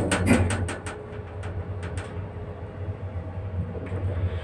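Passenger lift setting off upward: a quick run of clicks and knocks in the first second, then the steady low hum and rumble of the car travelling up the shaft.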